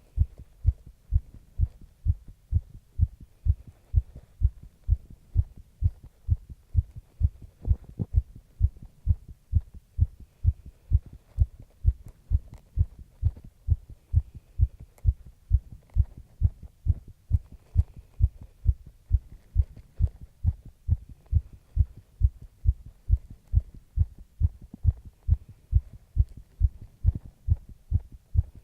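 Human heartbeat, a little fast from light exercise (stretching): a steady, even run of low thumps with the lub-dub pattern.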